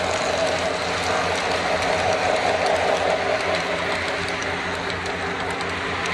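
O gauge model train running on its track: a steady electric motor hum and wheel rumble, with faint rapid ticking.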